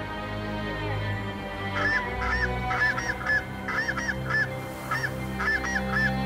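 Snow geese honking: short, high, yelping calls repeated in quick succession from about two seconds in, over steady background music.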